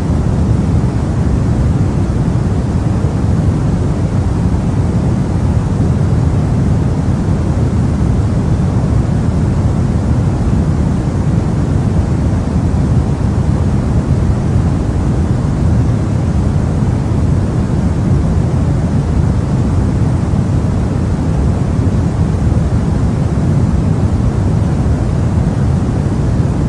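Steady, unchanging relaxation noise, a continuous rushing hiss weighted toward a deep low rumble, with no rhythm or breaks.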